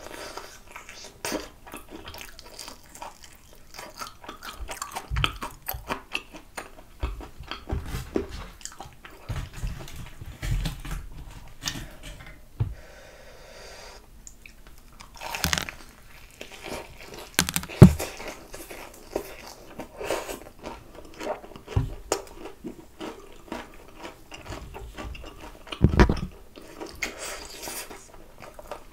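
Close-up eating sounds of fried chicken drumsticks: biting into and chewing the crispy battered skin, with crackling crunches and mouth sounds in irregular bursts. A few louder crunches stand out, the loudest about two-thirds of the way through and another near the end.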